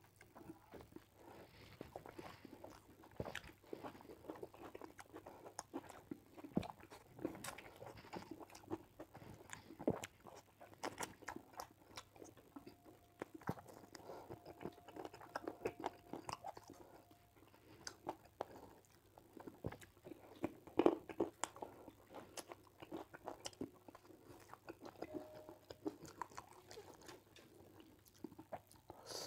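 Close-up eating sounds of chicken curry and rice eaten by hand: irregular chewing, biting and crunching as meat is gnawed off a chicken bone. The loudest crunch comes about two-thirds of the way through.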